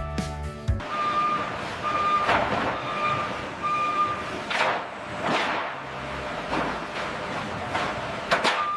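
Truck reversing alarm beeping four times, about once a second, over a steady haze of vehicle noise with a few passing whooshes.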